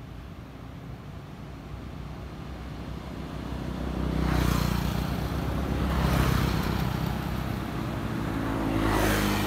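Motor vehicles passing on a nearby road: a low engine hum grows louder over the first few seconds, then swells three times as vehicles go by, with engine and tyre noise.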